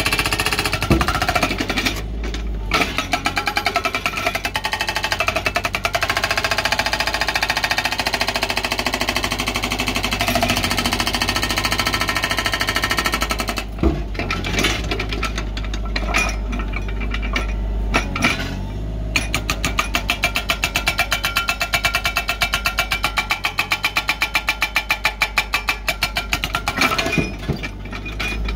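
Excavator-mounted hydraulic breaker (rock hammer) pounding its chisel into buried boulders and bedrock, a rapid, even stream of blows over the excavator's steady engine rumble. It stops briefly a few times, about 2 s, 14 s and 18 s in, then resumes.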